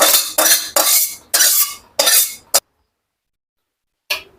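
A spoon scraping and clinking against a cooking pot in about five quick strokes, scooping out boiled cabbage, cut off abruptly partway through with one more brief scrape near the end.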